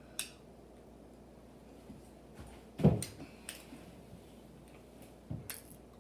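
A few scattered small clicks and knocks, with one louder low knock about three seconds in and a smaller one near the end.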